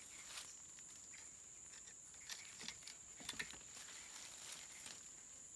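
Faint steady high-pitched insect drone, with a few light clicks and knocks about two to three and a half seconds in.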